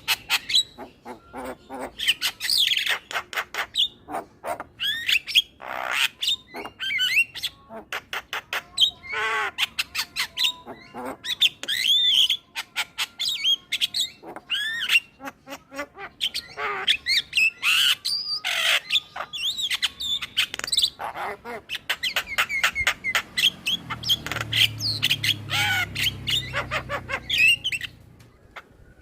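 Male Javan myna (jalak kebo) in full chattering song: a fast, unbroken jumble of harsh squawks, rapid clicks and short whistled notes.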